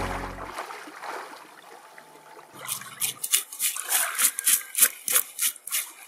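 Scales being scraped off a pollock's skin on a rock: quick rasping strokes, about three to four a second, starting a little under three seconds in. Before that, music fades out at the very start, then faint water sounds.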